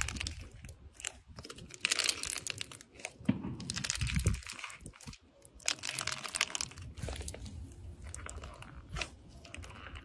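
Crunchy foam-bead slime being pressed and kneaded by a gloved hand: irregular crackling and crunching as the beads pop and squish, swelling and fading in uneven surges.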